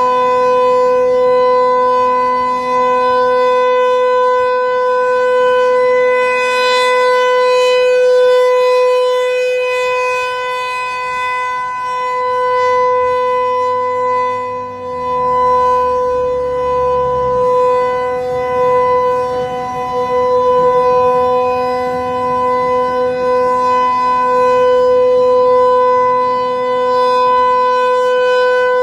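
Federal Signal 508-128 outdoor warning siren, a single-tone chopper siren, sounding the steady Alert signal. It holds one unwavering pitch that swells and fades slightly in loudness.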